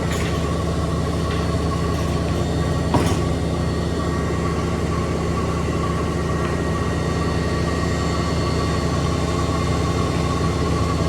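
Extra-large coin-laundry washing machine in its spin cycle: a steady mechanical drone with a level high-pitched whine, and a brief knock about three seconds in.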